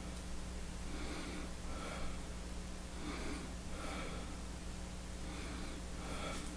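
A man breathing audibly through his nose, a soft breath about every second, over a steady low hum.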